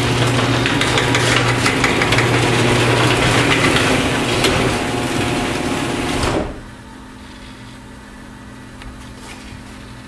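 Genie H4000A-2 screw-drive garage door opener running the door closed, a steady motor hum with the rattle of the screw drive and door. It stops abruptly a little over six seconds in, leaving a faint steady hum. The opener is running normally again after its screw-rail collar was repaired.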